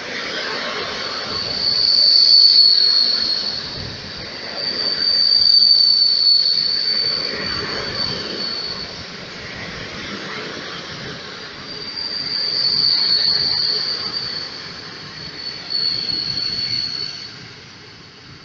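Passenger coaches rolling past along the platform, their wheels squealing on the rails in a high, steady pitch that comes and goes in four long stretches, with rumbling rail noise in between.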